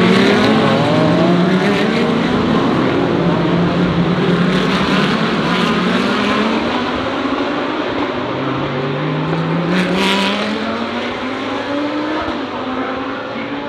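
Several GT3 race cars' engines running at full racing speed. Their pitch rises again and again as they accelerate and shift up through the gears, with a short sharp crack about ten seconds in.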